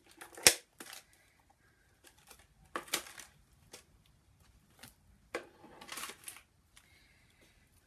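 Cured resin coaster pieces being peeled out of a flexible silicone mold and set down on a plastic sheet: a sharp click about half a second in, then scattered rustling and soft taps.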